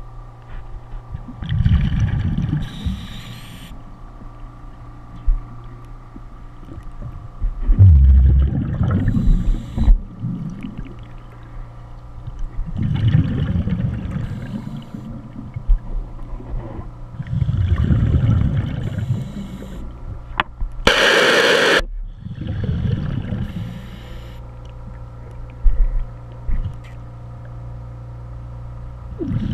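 Scuba diver breathing through a regulator underwater: exhaled bubbles rumble out in bursts about every four to five seconds over a steady hum. About two-thirds of the way in there is one brief loud hiss.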